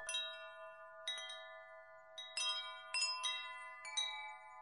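Metal wind chimes ringing, struck irregularly about eight times, each strike a cluster of bright bell-like notes that ring on and overlap.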